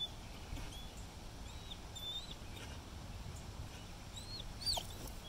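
Small birds chirping: short whistled notes that bend up and down, scattered through, with a louder falling note near the end, over a low background rumble.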